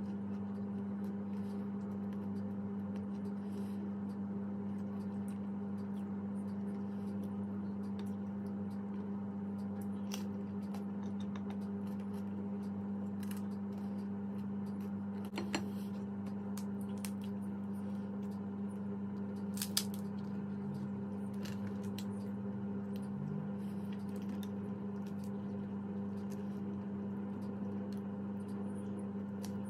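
A steady low hum at one even pitch with overtones, with a few short clicks and crunches of pizza being eaten scattered over it, the sharpest about fifteen and twenty seconds in.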